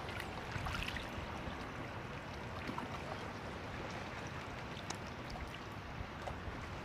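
Steady rush of wind and rippling water, with a few faint clicks.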